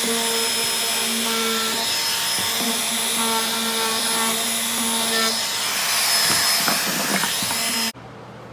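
Compact Bosch trim router running with a 1/16-inch roundover bit, rounding over the edges of plywood: a steady high motor whine with hiss that cuts off abruptly near the end.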